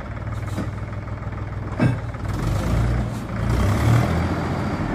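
Mahindra 265 DI tractor's three-cylinder diesel engine running under load while its front loader tips a bucket of sand into a trolley; it gets louder partway through, and there is a single knock a little before that.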